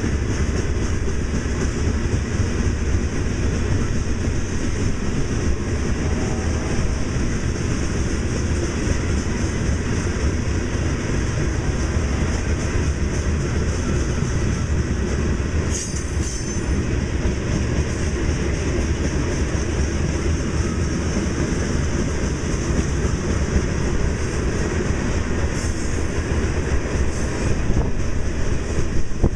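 Loaded rock-train gondola cars rolling past: a steady rumble of steel wheels on the rail, with a brief high squeal about halfway through.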